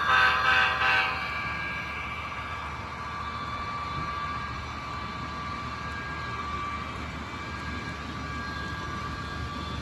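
HO scale model freight train led by a CSX SD70MAC diesel locomotive model, its horn sounding a few short repeated blasts that stop about a second in. After that comes a steady running hum with faint steady high tones as the freight cars roll past on the track.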